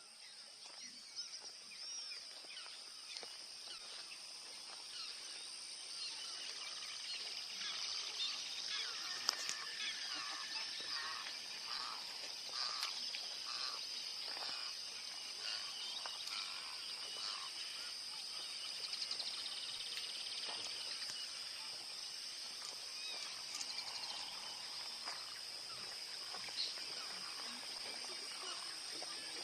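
Many wild birds chirping and calling at once, short rising and falling notes overlapping, over a steady high-pitched hum.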